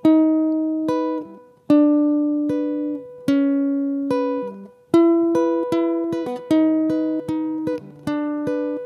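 Acoustic guitar played solo: plucked notes and chords, each ringing out and fading. The notes come slowly at first, then quicker from about halfway.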